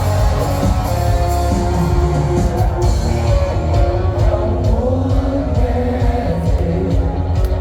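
Rock music with singing: a live-sounding rock band with a strong, dense low end and a held, sung melody.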